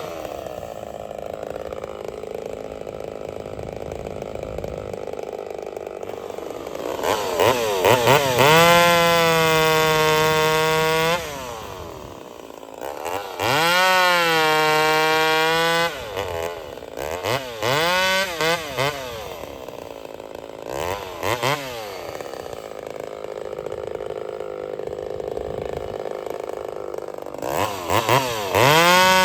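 Ported Homelite VI-130 two-stroke chainsaw idling, then revved to a steady high pitch twice for a few seconds each, blipped several times in quick succession, and run up again near the end.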